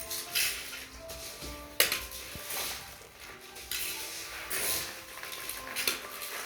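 Small hard objects clattering and scraping in irregular bursts, with one sharp knock about two seconds in, over soft background music.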